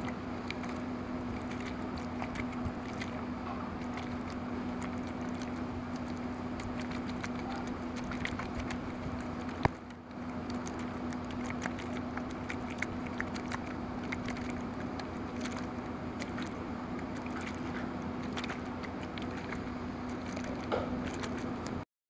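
Floating glacier ice crackling and popping: many small irregular clicks over a steady low hum, with one sharper click near the middle.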